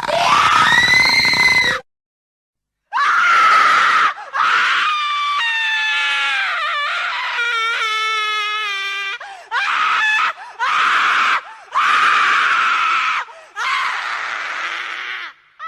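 Terrified human screams from a horror sound-effect track, about seven in a row separated by short silent gaps. The longest one is in the middle and has a high, wavering pitch.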